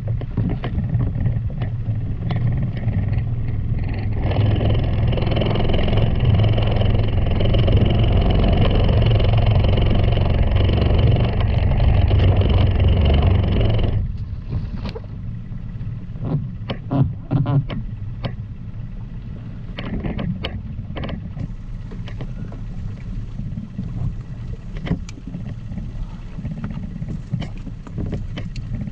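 A small boat's outboard motor running steadily, louder from about four seconds in, then cutting off suddenly about halfway through. After that there is a steady wash of wind and water with scattered knocks and clicks from line and gear being handled.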